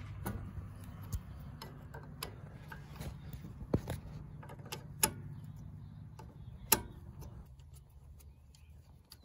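Irregular sharp metallic clicks and clinks, roughly one a second, from the CV axle's inner flange and its bolts being turned and handled by hand, over a low steady hum that stops about seven and a half seconds in.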